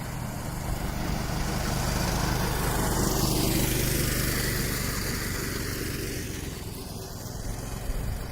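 Small engine of a motosobaka (motorized snow tow) running as it passes by: it grows louder to a peak about halfway through, then fades away.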